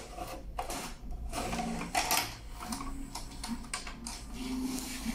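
A VHS cassette is pushed into a Philips VR151 video recorder and drawn in by its loading mechanism. There are several clicks and clunks, the loudest about two seconds in, and from about a second and a half on the loading motor and gears run with a steady low whirr.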